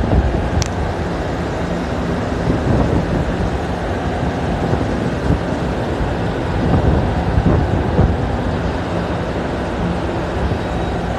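Steady low rumble and hum of a shiploader's conveyor machinery loading coal into a bulk carrier, mixed with wind on the microphone. A brief high squeak comes under a second in.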